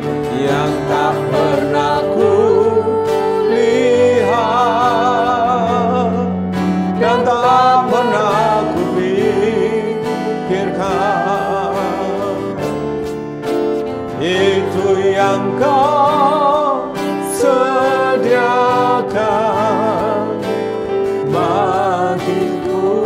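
Worship song in Indonesian: a voice singing slow phrases with vibrato over acoustic guitar accompaniment.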